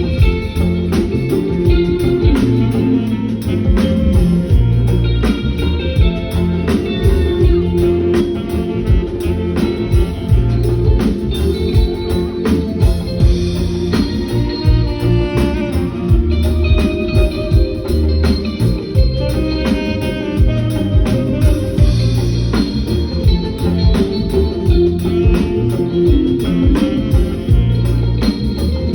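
Live band playing instrumental music at a sound check: a drum kit keeps a steady beat under electric guitar and an organ-like keyboard, with a heavy low bass.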